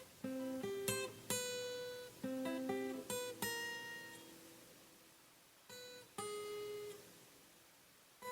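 Solo guitar picking a slow melody one note at a time, each note ringing out and fading: a quick run of notes, a pause, then two more notes.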